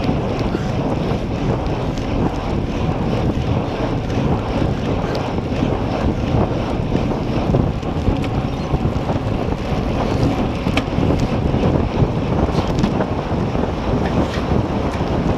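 Steady, heavy wind rushing over the microphone of a camera on a road bike moving at about 40 to 50 km/h. A few faint ticks come through the rush in the second half.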